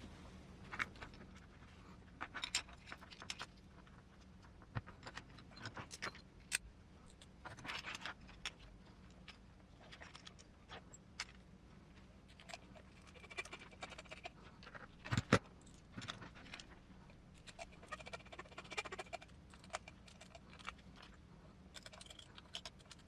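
Irregular light clicks and taps of small metal parts and tools being handled, with one louder knock about two-thirds of the way through.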